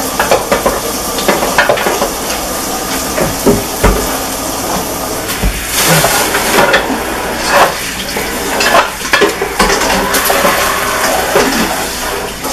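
Pots, pans and metal utensils clattering, with frequent irregular clicks and knocks, as meatballs are handled into a pot of spaghetti sauce, over a steady sizzle of frying.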